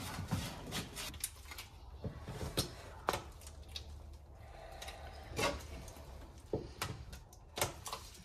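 Irregular light clicks and scrapes of a stick scooping thickened epoxy glue from a plastic tub and smearing it into a fibreglass bulkhead joint.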